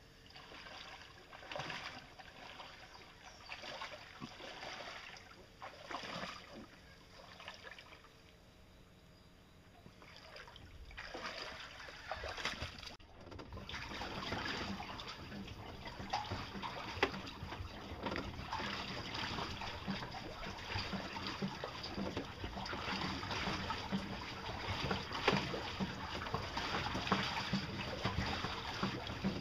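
Water splashing and sloshing around a boat's hull as the boat is moved through a shallow creek. It comes in patches at first, then grows steadier and louder from about eleven seconds in.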